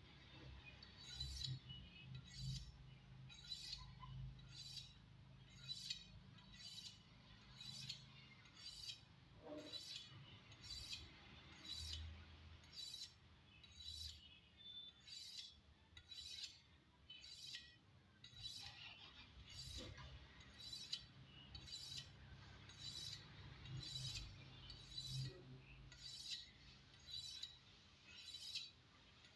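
Knife blade being drawn along a honing steel in steady repeated strokes, a short metallic scrape-and-clink about one and a half times a second.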